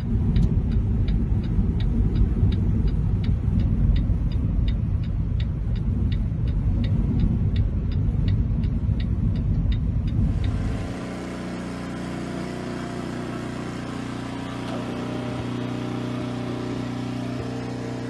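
Road and engine rumble inside a car driving through snow, with a regular sharp tick about three times a second. About eleven seconds in the rumble cuts off and a quieter steady hum with several held tones takes over.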